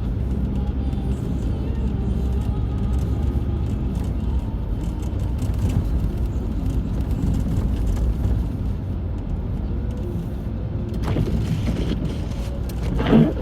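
City street traffic: a steady low rumble of cars on the road, with a brief louder sound near the end.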